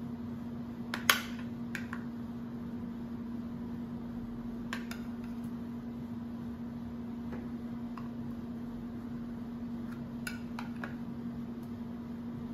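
A utensil clinking and tapping against a glass container as cubes of butter are scraped out into a Thermomix bowl. There is one sharp clink about a second in, the loudest sound, then a few lighter clicks, over a steady low hum.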